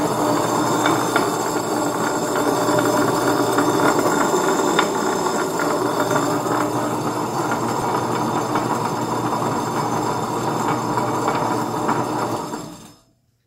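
Ultra Micro 1.75-litre tabletop wet grinder running empty: its motor drives the stainless-steel drum round against its two grinding stones, making a steady hum and rumble with a light scatter of clicks. It is switched off near the end, and the sound dies away.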